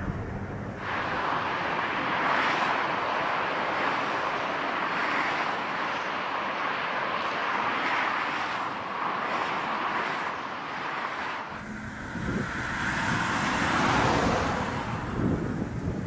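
Aircraft landing in strong crosswind: a steady rush of engine noise mixed with wind buffeting the microphone. The sound changes abruptly about a second in and again near twelve seconds in, where a heavier low rumble comes in.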